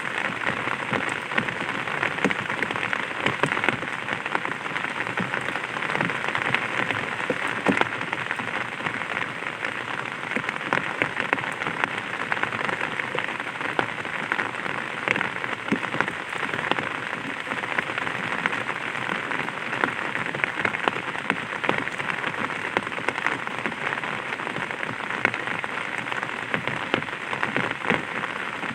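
Light rain pattering on an umbrella canopy, a steady hiss of many separate drop taps.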